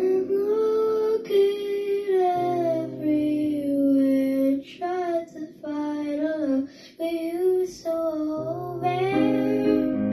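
A young girl singing a slow melody over an instrumental accompaniment of held notes, with short breaks between phrases.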